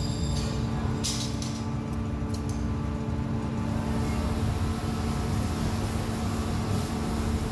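Factory machinery, most likely the aluminium die-casting machine, running with a steady hum and low rumble. A few short hisses and clicks come about one to two and a half seconds in.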